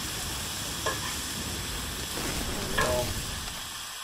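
Beef patties and thin-sliced onions frying on a hot griddle with a steady sizzle. A metal spatula scrapes against the griddle twice, about a second in and near the end.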